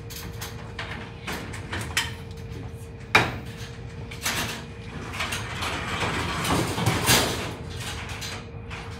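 Metal clanks and rattling from a wire-mesh cage door and its latch being worked open, with a sharp clank about three seconds in and a longer stretch of rattling a couple of seconds later.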